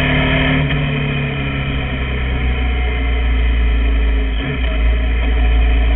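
KTM 990 Super Duke's V-twin engine running. Its pitch steps down during the first second or so, then holds steady at lower revs.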